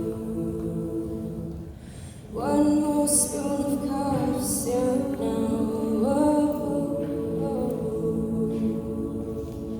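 A cappella vocal group singing unaccompanied in sustained chords. One held chord fades out about two seconds in, then a new full chord swells in and is held for the rest, with a few sung words over it.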